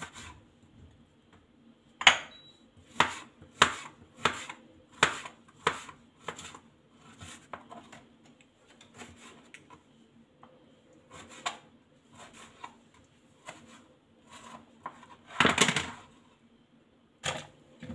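Kitchen knife cutting a kiwi fruit on a white plastic cutting board: sharp, irregular knocks of the blade on the board, coming about every half second for several seconds, then sparser. A louder clatter comes about fifteen seconds in.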